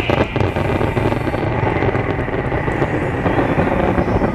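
Fireworks crackling, with a cluster of sharp pops in the first half second, over a dense steady wash of crowd noise.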